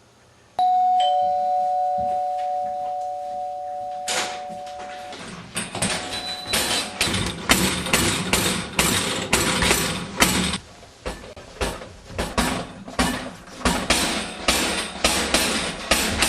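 A two-tone doorbell chime (ding-dong), its notes ringing on for a few seconds. From about four seconds in, repeated heavy banging follows, roughly two blows a second, as a locked door is forced from outside.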